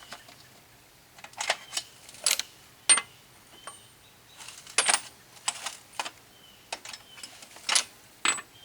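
Metal hand tools clinking and clattering: irregular sharp clicks, some with a brief metallic ring.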